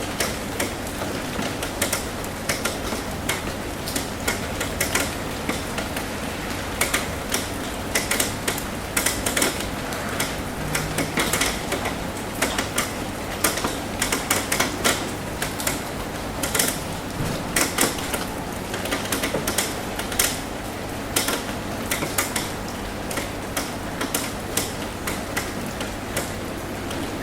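Raindrops tapping on a metal roof: a steady wash of rain with many irregular, sharp ticks of single drops, busiest in the middle stretch.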